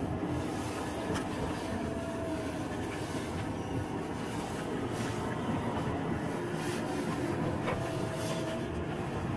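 Car running along a narrow mountain road: a steady engine and tyre rumble with a few small clicks and rattles.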